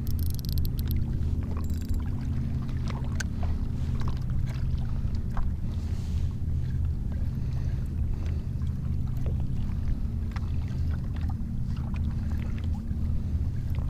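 Water slapping and splashing against a kayak's hull on choppy sea, with scattered small clicks, over a steady low hum.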